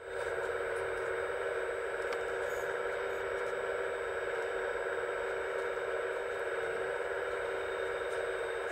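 Hydraulic pump of an RC scale excavator running with a steady whine, with a few light clicks, as the grapple-saw head's grapple closes around a branch.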